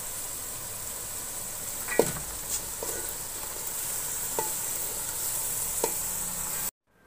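Hot oil and tomato masala sizzling steadily in a steel pot as chopped, freshly washed spinach is dropped in, with about five short knocks scattered through it. The sizzle cuts off suddenly near the end.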